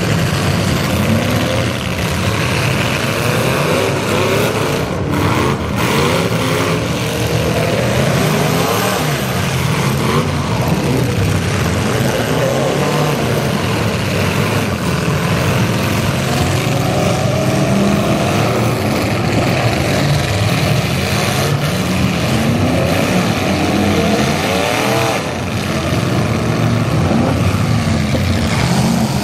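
Engines of several demolition derby cars running and revving at once, many pitches rising and falling over one another as the cars accelerate and back up.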